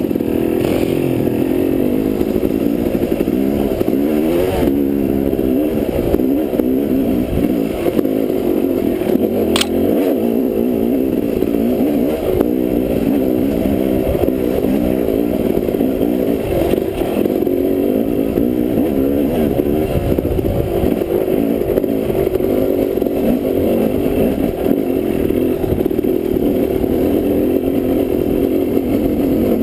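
Dirt bike engine running under load on a rocky trail, its revs rising and falling as the throttle is worked, with clattering over rocks and one sharp tick about ten seconds in.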